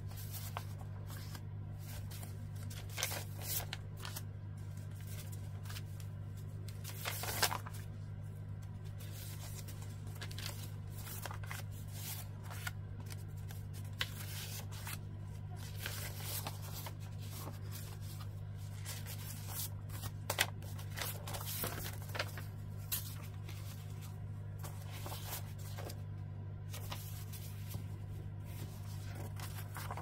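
Sheets of old paper being handled, slid and laid down on a cutting mat: irregular rustles and soft paper slaps, a few sharper ones about seven seconds in and near two-thirds through. A steady low hum runs underneath.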